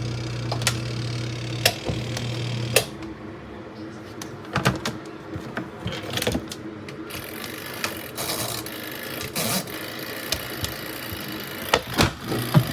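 Small twin-tub portable washing machine's motor humming, cutting off about three seconds in. Irregular clicks and knocks follow, and the hum starts again at the very end.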